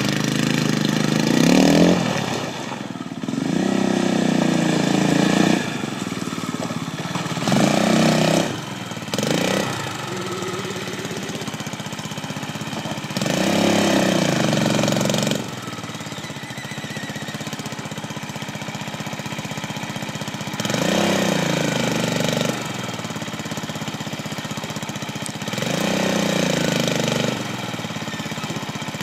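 Quad bike (ATV) engine idling, with repeated throttle bursts of a second or two each as it climbs a wooden ramp, the pitch rising with each burst and dropping back to idle in between.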